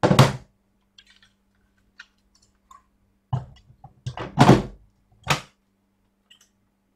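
Plastic oscilloscope case parts being handled and set down: a knock at the start, a few light clicks, then a cluster of knocks and scraping slides about three and a half to five and a half seconds in, the loudest near four and a half seconds. A faint steady hum sits underneath.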